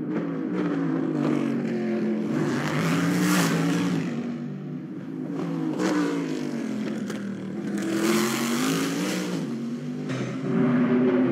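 Corvette Daytona Prototype race car's V8 engine revving hard under acceleration. The pitch climbs, then drops sharply several times as the car brakes and downshifts for the corners.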